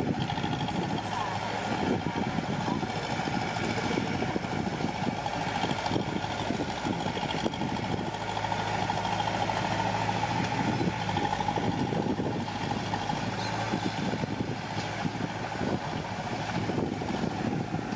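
Diesel engine of heavy earthmoving machinery running steadily, a continuous drone with irregular clatter over it.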